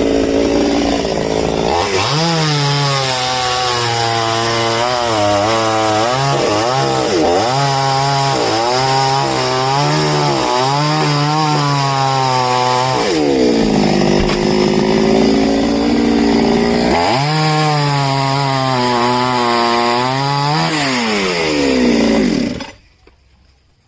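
Chainsaw cutting into a coconut palm trunk. The engine pitch dips under load and climbs back again and again. The saw stops abruptly near the end.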